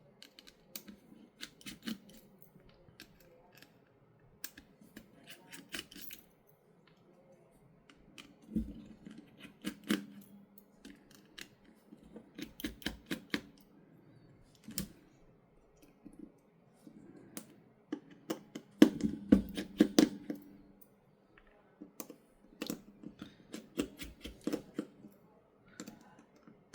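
Irregular small clicks and taps of a precision screwdriver and metal screws as the screws are taken out of a Samsung Galaxy S23 Ultra's frame. The clicks come in clusters and are loudest about twenty seconds in.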